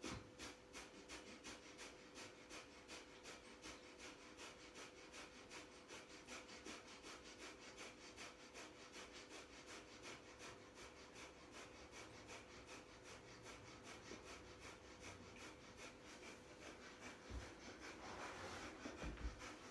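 Breath of fire: rapid, rhythmic, forceful exhales through the nose, about three a second, driven by pumping the navel. Faint.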